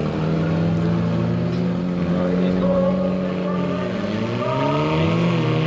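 Four-cylinder hatchback engines running steadily, with the revs dipping and climbing again twice near the end.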